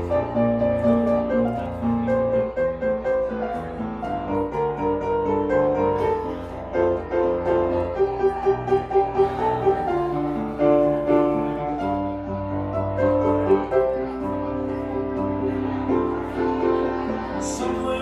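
Grand piano played live, with a run of quick repeated notes about halfway through.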